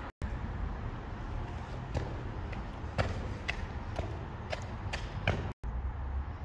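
Footsteps on a stone towpath under a brick canal bridge arch: sharp clicks about twice a second, each with a short echo, over a steady low rumble.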